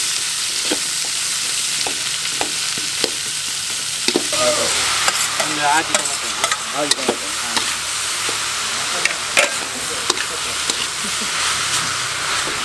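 Food sizzling in a hot pan, a steady hiss, with scattered clicks and scrapes of a utensil stirring it.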